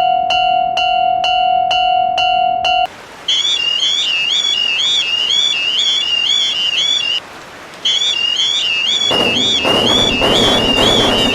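Railroad crossing warning alarms: first a bell-like electronic ding struck about twice a second over a held tone, which stops about three seconds in; then a warbling electronic alarm tone wavering up and down about twice a second, broken by a short gap. A loud rushing noise joins it about nine seconds in.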